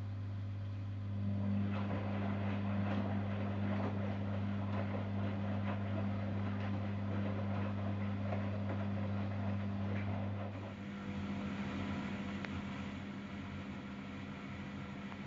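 Zanussi Jetsystem Turbodry ZWD 1000 washer-dryer running, with a steady low hum. About a second in, a louder busy rustling joins the hum. Near two-thirds of the way through, the hum cuts out and a rougher, lighter whir carries on.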